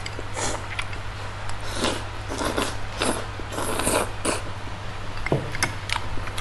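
Eating sounds from a bowl of spicy noodles: short slurps and chewing noises, mostly in the middle seconds, with scattered light clicks, over a steady low hum.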